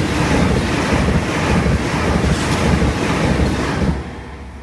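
Red high-speed electric train passing close at speed: a loud, steady rush of wheels on rail and displaced air, with the slipstream buffeting the microphone. The noise drops sharply about four seconds in as the last car clears, leaving a fading rumble.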